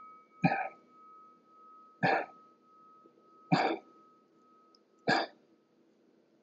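A man's sharp, forceful breaths out, four of them about a second and a half apart, one with each repetition of a prone Y's and T's exercise.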